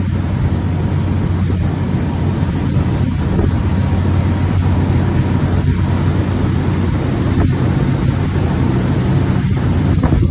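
Steady low drone of a cruise boat's engine under way, with a rushing noise over it.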